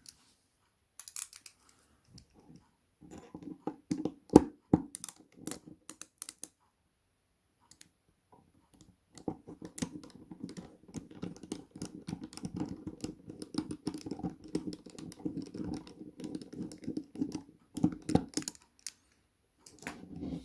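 Small metallic clicks and tapping as a lock is handled and taken apart with a cross-head screwdriver, then a dense run of fast rattling clicks from about nine seconds in until near the end, as the screws are worked.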